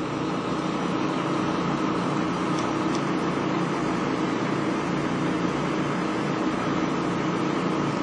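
An engine running steadily at a constant speed, an even hum with no changes.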